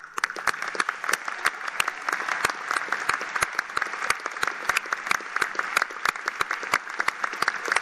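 Large crowd applauding, a dense clapping with many sharp individual claps standing out.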